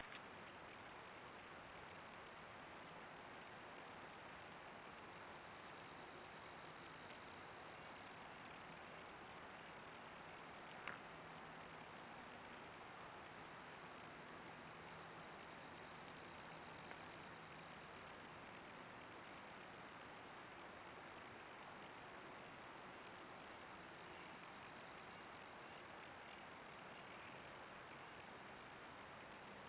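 Steady, unbroken high-pitched insect chorus, crickets trilling in the cool morning, with a single faint click about eleven seconds in.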